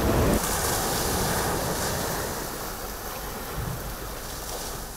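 Sea surf washing on a shore, with wind on the microphone: a steady rush of noise that slowly fades away.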